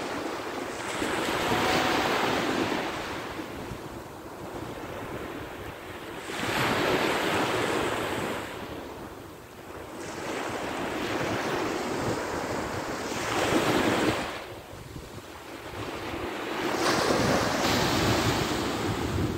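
Ocean surf breaking on the beach: four waves crash in turn, each a rush of noise that swells and fades over a few seconds.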